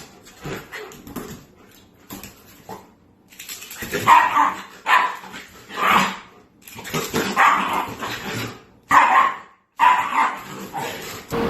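A dog barking, a series of separate barks with short pauses between them.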